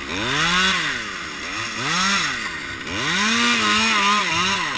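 Two-stroke chainsaw revving in three bursts, its pitch rising and falling with each.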